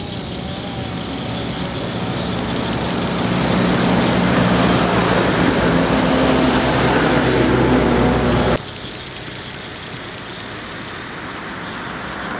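A motor running with steady low hums under a loud rushing noise, growing louder for about eight seconds and then cut off abruptly, leaving a quieter steady background.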